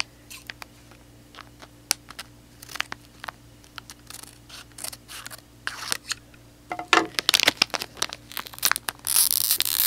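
Scissors snipping across the top of a foil blind-bag packet, the foil crinkling as it is handled. The crinkling grows busier later on, and near the end comes a louder tearing rip as the packet is pulled open.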